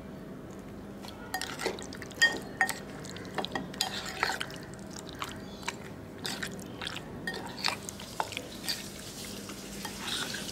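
A spoon stirring raw chicken pieces coated in masala paste in a bowl: irregular wet squelches and clicks of the spoon against the bowl, starting about a second in. A low steady hum underneath.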